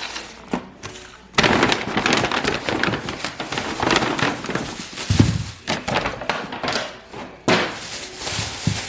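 Grocery bag and food packaging crinkling and rustling as items are taken out and handled, with a dull thump about five seconds in as something is set down.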